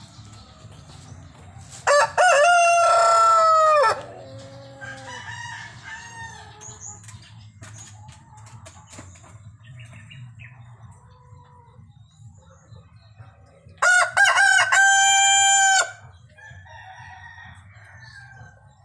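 Rhode Island Red rooster crowing twice, each crow about two seconds long and loud, with softer clucking in between.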